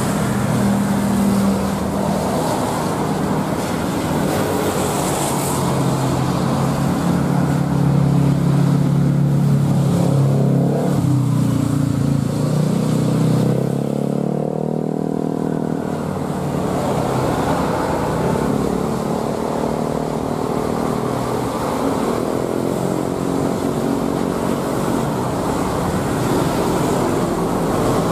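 Citilink Airbus A320-214's CFM56 turbofan engines at takeoff thrust, a loud steady roar through the takeoff roll, lift-off and climb-out. Its tone sweeps and wavers around the middle as the jet passes.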